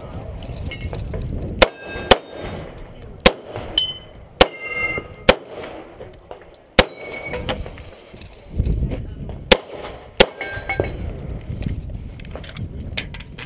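An HK pistol fired in an action pistol course of fire: about eight shots at irregular spacing, some a fraction of a second apart and others a few seconds apart, several followed by a brief metallic ring from struck steel targets.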